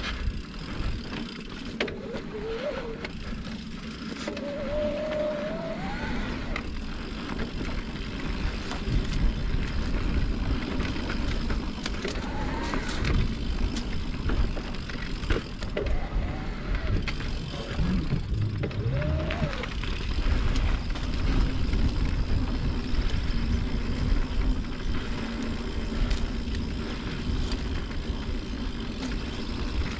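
Mountain bike in motion: wind rushing over the microphone with tyres rolling on the trail, growing louder after the first few seconds.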